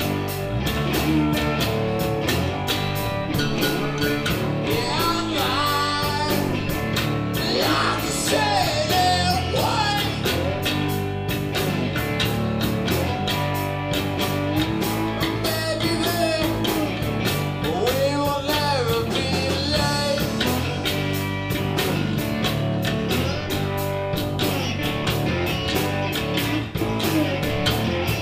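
Live rock band playing: electric guitar, electric bass and a drum kit keeping a steady beat, with a man singing in stretches over it.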